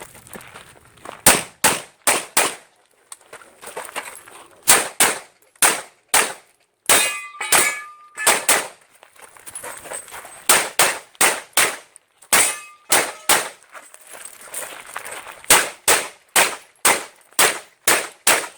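Open-division Glock pistol fired in rapid strings of two to five shots, about three or four shots a second, with short pauses between strings as the shooter moves through a USPSA stage. A pitched ringing, as of a hit steel target, comes in about seven seconds in and briefly again near twelve seconds.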